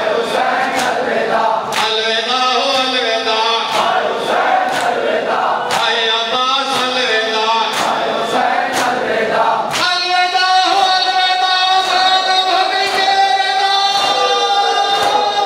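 Large group of male mourners chanting a noha in chorus, with sharp slaps of hands on bare chests (matam) about once a second. About ten seconds in, the chant settles into one long held note that rises slightly.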